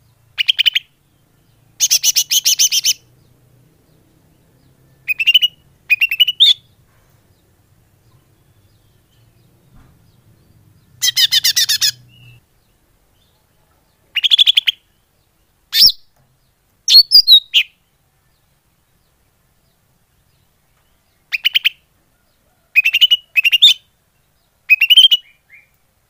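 Green leafbird (cucak ijo) calls played as a bird-trapping lure (pikat). They come in short bursts of rapid-fire chattering notes, some ending in an upward flick, repeated about a dozen times with gaps between and one longer pause about two-thirds of the way through.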